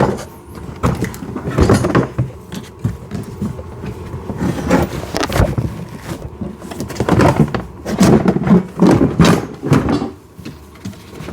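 Hollow plastic knocks, scrapes and rattles as a kids' ride-on car's plastic body is turned back over and handled, with a denser run of louder knocks in the second half.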